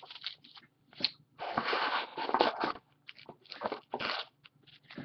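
Hands rummaging through trading cards in clear plastic holders inside a cardboard box: scattered plastic clicks and clacks, with two longer bursts of rustling, about a second and a half in and again near the end.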